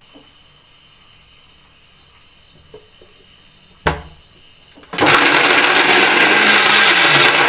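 A sharp click as the lid goes onto the steel jar of an electric mixer grinder. About five seconds in, the grinder starts and runs loud and steady, grinding coconut pieces and poppy seeds into a paste.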